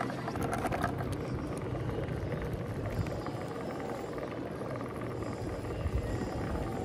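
Bicycle rolling over brick paving: steady tyre rumble with wind buffeting the microphone, and a few rattling clicks from the bike and its wire basket in the first second.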